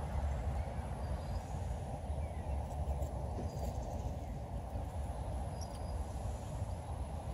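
Steady outdoor background noise with a low rumble and a few faint, short, high chirps.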